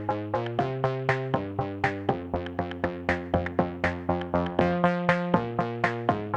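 Electronic background music: a quick plucked synthesizer pattern of about four notes a second over changing held chords.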